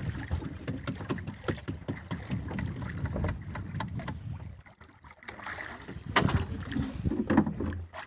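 Small fishing boat at sea: wind on the microphone and water against the hull, with irregular knocks and clatter from handling on board. It goes quiet briefly about halfway, then picks up again, louder.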